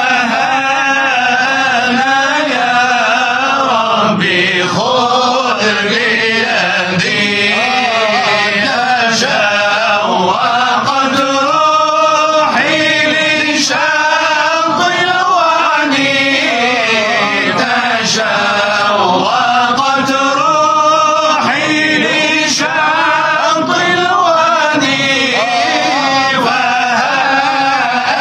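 Male Sufi munshids chanting an Arabic nashid, one continuous melodic line that bends and sways without pause.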